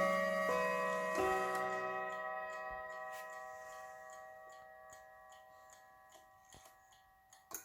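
Howard Miller triple-chime clock chiming: a few chime notes struck in the first second and a half ring on and slowly fade, with the clock's steady ticking heard beneath as they die away. A sharper click comes near the end.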